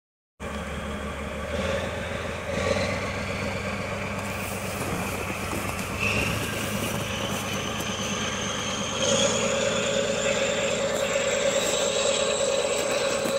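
DE15 diesel snowplough locomotive approaching, its engine running with a slowly rising whine over the hiss of snow thrown aside by the plough. The engine gets louder about nine seconds in.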